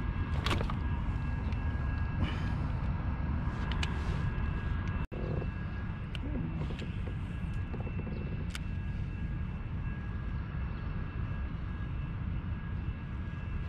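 Steady low rumble of wind buffeting the microphone on an open-water kayak, with a few short clicks and knocks from gear being handled.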